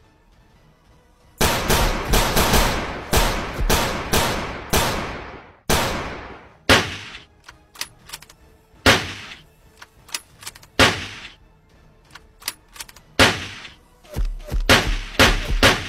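Gunfire sound effects: rapid shots and bursts of automatic fire, each with an echoing tail. They start about a second and a half in, thin out to single spaced shots in the middle and grow dense again near the end.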